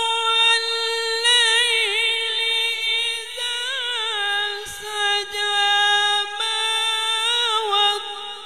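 A man reciting the Quran in the melodic tajweed style, drawing out long held notes with wavering ornamental turns and a few step changes in pitch.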